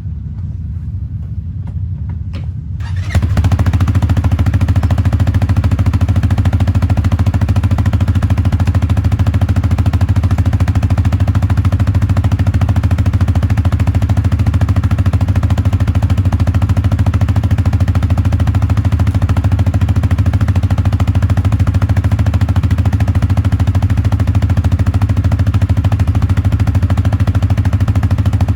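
2021 CFMOTO CFORCE 450L ATV's single-cylinder four-stroke engine running at a steady speed. It is quieter at first, then turns abruptly louder about three seconds in and stays steady.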